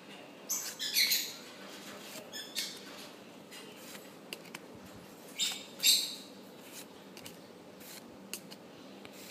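Pokémon trading cards sliding against one another as the front card is pulled off a hand-held stack to reveal the next, giving a few short papery swishes and small clicks.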